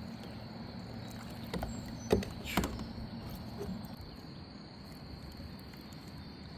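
A steady high-pitched insect chorus, like crickets, with a few light knocks and clicks about two seconds in.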